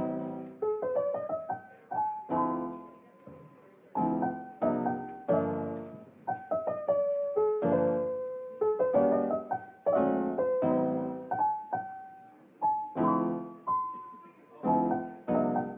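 Background music: a gentle piano melody of struck chords and single notes, each fading away before the next.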